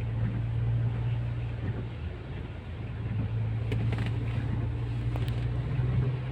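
Steady low hum of a car's engine and road noise, heard from inside the cabin while driving, with a few faint clicks about four and five seconds in.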